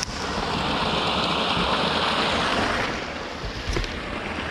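Water rushing steadily through an inlet into a trout pond, louder for the first three seconds and then easing off, with a light knock near the end.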